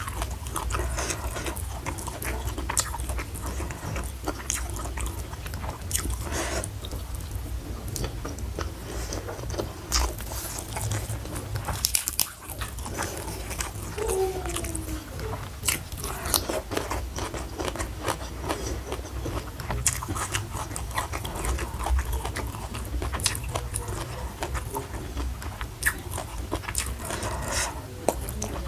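Close-miked eating: chewing with frequent short, crisp crunches and bites, over a steady low hum.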